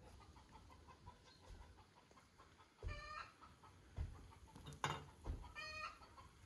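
Chickens clucking: two short, drawn-out hen calls, about three seconds in and again near the end, with a sharp knock between them.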